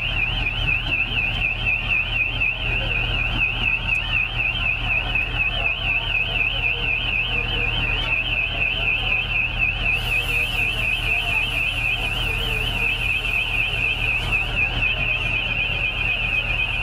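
A high-pitched electronic alarm sounds without a break, its tone warbling rapidly up and down several times a second. Under it runs a steady low rumble.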